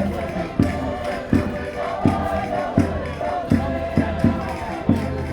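Concertinas playing a lively Minho folk tune with a strong beat about every three-quarters of a second, and voices singing along.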